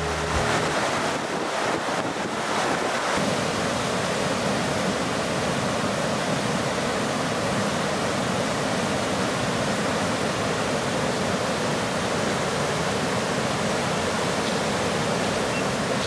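Steady rush of a fast river running over rocks, an even hiss that does not change.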